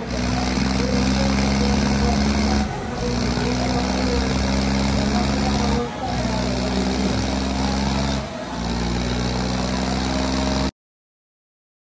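Diesel tractor engines running hard and steady at high revs under load, with brief dips about every three seconds. The sound cuts off abruptly near the end.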